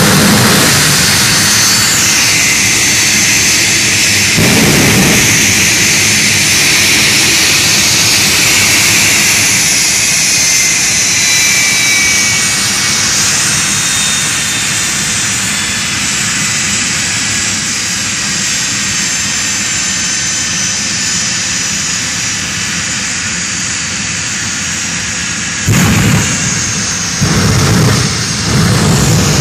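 Jet dragster's jet engine running steadily at high power with a high whine, broken by sudden louder afterburner blasts that shoot flame from the exhaust: one at the start, one about four seconds in, and three close together near the end.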